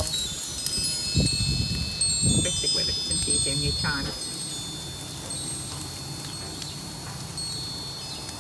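Metal tube wind chime ringing: several high, clear tones struck and ringing over one another, thinning out after about four seconds.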